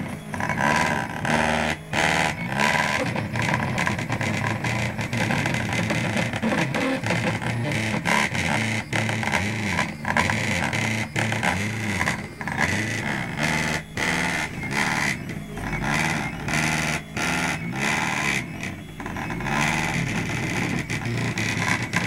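Loud, dense music with distorted electric guitar, steady throughout.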